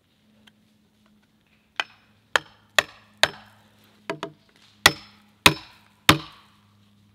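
A felling wedge being hammered into a chainsaw cut in a white oak log to keep the saw bar from getting pinched: nine sharp blows, about two a second, starting a couple of seconds in, the last few the loudest.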